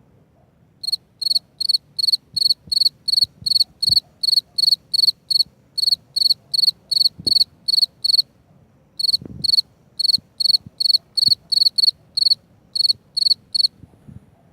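A cricket chirping: a high, even chirp repeated about three times a second, with a short break a little past the middle, stopping shortly before the end.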